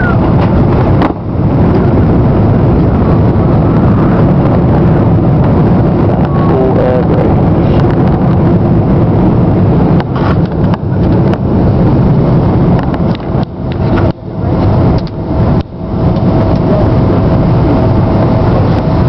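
Loud, steady noise of an airliner's engines and rushing air heard from inside the cabin during the landing roll, with the wing spoilers deployed. A faint steady tone joins in about halfway through, and the noise briefly dips a few times.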